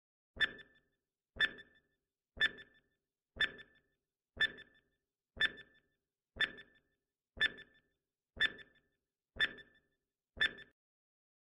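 Countdown timer sound effect: a short electronic beep once every second, eleven in all, each fading quickly.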